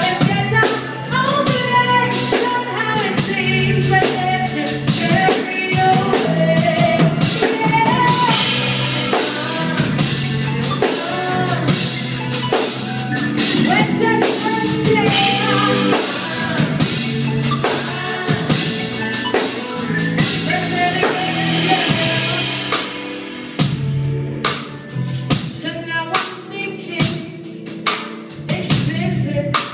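Live band playing a song: a woman singing over electric guitars and a drum kit.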